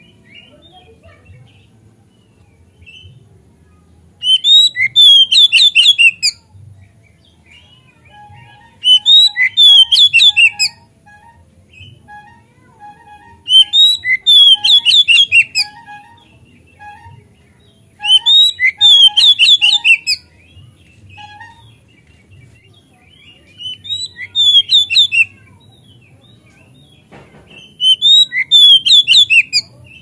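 Oriental magpie-robin (kacer) singing in loud bursts of rapid, varied whistled notes: six phrases of about two seconds each, coming every four to five seconds.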